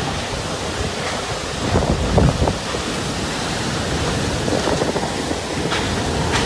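Cyclone wind and heavy rain, with the wind buffeting the phone's microphone. There is a cluster of louder gusts about two seconds in.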